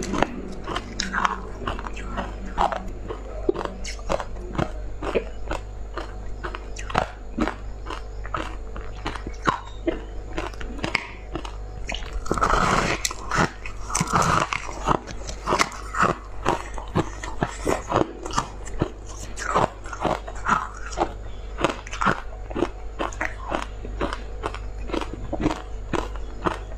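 Crunching and chewing of a block of purple frozen crushed ice, picked up close on a clip-on microphone. The sound is a dense run of sharp crackling clicks, with louder bites about halfway through.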